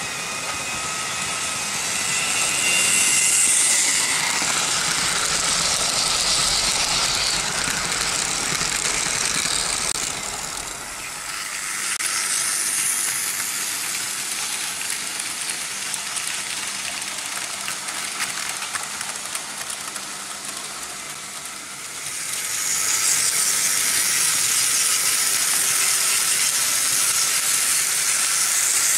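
Vintage Märklin H0 model trains running on pressed-steel M-track: a continuous hissing rattle of metal wheels rolling over the track. It swells as trains pass close, dips around eleven seconds and again just after twenty seconds, then comes back up.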